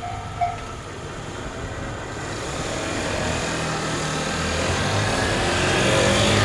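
Japanese railroad crossing warning bell repeating its ding a little over twice a second, then stopping about half a second in. A road vehicle then approaches across the crossing, its engine and tyre noise building steadily.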